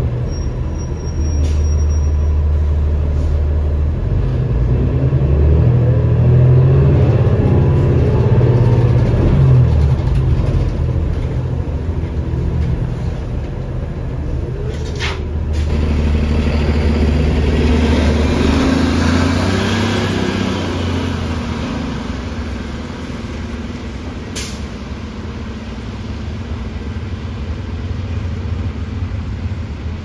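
Cummins ISL diesel engine of a 2007 New Flyer D40LFR transit bus heard from on board. Its low drone shifts up and down in steps, then runs quieter in the last third. Two brief sharp noises come about halfway through and about three quarters of the way through, with a stretch of hiss between them.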